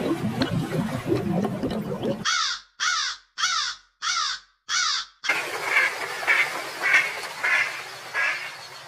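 A crow cawing five times in quick succession, the caws about half a second apart, then a run of about five evenly spaced mallard quacks. The first two seconds hold a rough, noisy rumble.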